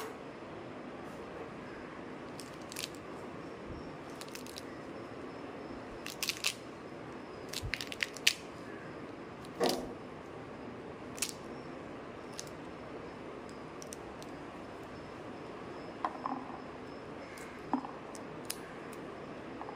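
Pomegranate rind and pith cracking and tearing as hands pull the scored fruit apart into sections: irregular crackles and snaps, some in quick clusters, over a steady background hiss.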